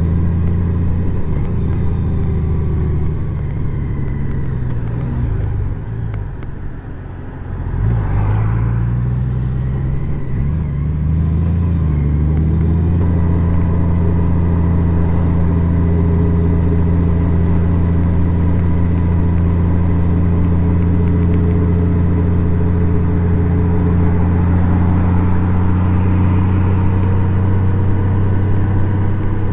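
Honda Gold Wing motorcycle engine easing off and slowing over the first few seconds, then pulling away and picking up speed about eight seconds in. It settles into a steady cruise from about twelve seconds on.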